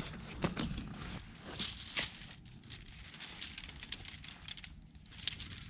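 Tent being pitched: nylon tent fabric crinkling and rustling as it is handled, with scattered light clicks from the tent poles.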